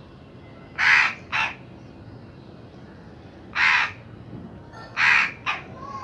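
Crow cawing: five harsh caws in three groups, a long caw with a short one after it, a single long caw, then another long and short pair.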